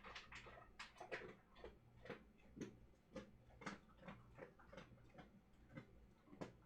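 Dog chewing dry kibble: faint, irregular crunches about twice a second, over a low steady hum.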